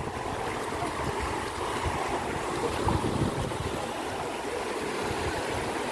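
Shallow rocky river rushing steadily over stones and riffles.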